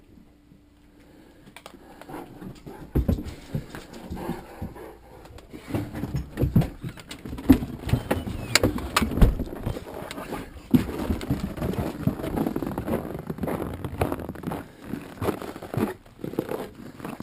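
Irregular footsteps and knocks, crunching in deep snow, starting after a short quiet moment and going on unevenly with some louder thumps.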